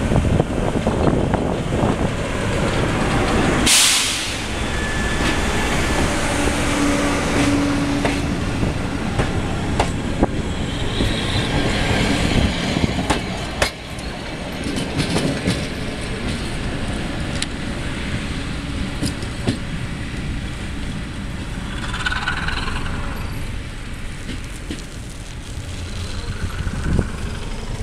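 PKP SU42 diesel locomotive and its passenger coaches passing close by, the engine running, with a short loud hiss about four seconds in. Then the coach wheels click over the rail joints as the coaches go by, and the train draws away.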